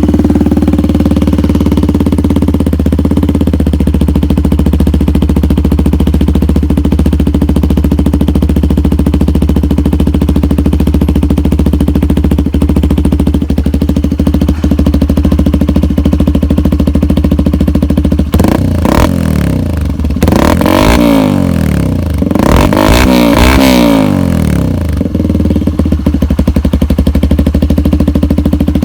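2020 Benelli TNT 135's single-cylinder engine idling steadily through a straight-pipe exhaust that replaced the stock headers. About two-thirds of the way through come three quick throttle revs that rise and fall, then it settles back to idle.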